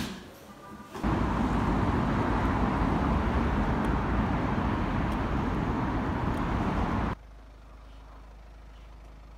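Loud, steady outdoor traffic noise from a street at night, starting suddenly about a second in after a short tap, and cutting to a much quieter steady hum about seven seconds in.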